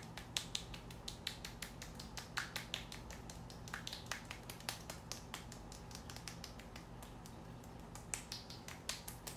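Fingertips patting a slimy skincare serum onto facial skin: a quick, irregular run of soft sticky taps, several a second, that goes on throughout.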